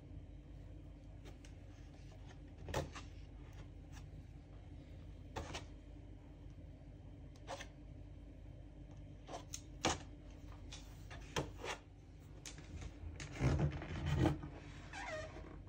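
Offset palette knife spreading thick coconut cream in a foil-lined baking tray: scattered faint scrapes and clicks, with a louder clatter of knocks near the end.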